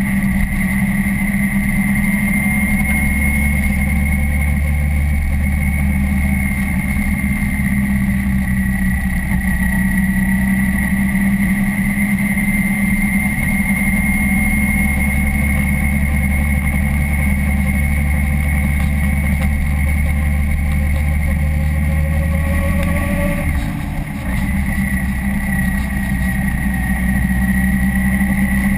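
Motorcycle engine running steadily while riding, heard from the bike itself. About three quarters of the way through, the engine note briefly rises and then dips for a moment before settling again.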